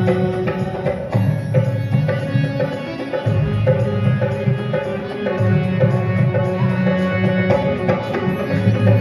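Instrumental break in a live folk song, with no singing: an electronic keyboard plays a plucked, sitar-like melody over a steady tabla-style drum beat. The bass drops out briefly twice, about three and five seconds in.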